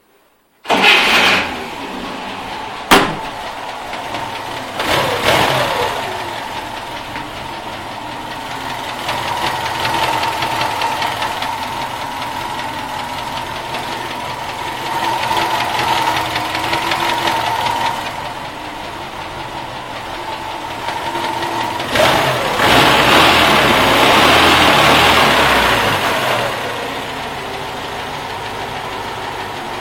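Car engine starting about a second in and then running with a knock, revved up three times, the longest near the end; the owner presents it as a knocking engine.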